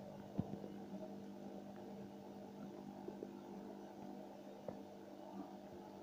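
Steady low electrical hum of an aquarium pump motor, with a couple of faint ticks.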